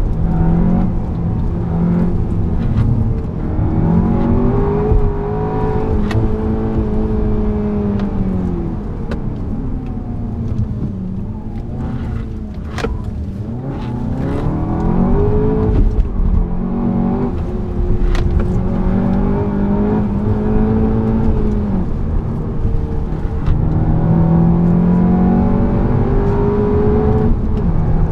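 Seat Leon Cupra's turbocharged 2.0-litre four-cylinder engine heard from inside the cabin, revving hard up through the gears, its pitch climbing and dropping again and again. About ten seconds in the revs fall low through a slow, tight bend, then climb again.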